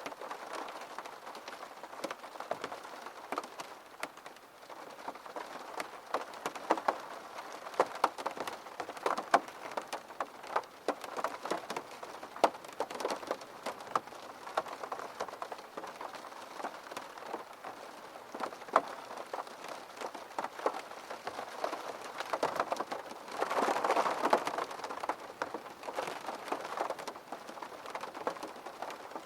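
Steady rain falling, with many separate drops tapping sharply on a hard surface. The rain swells louder for a couple of seconds about three-quarters of the way through.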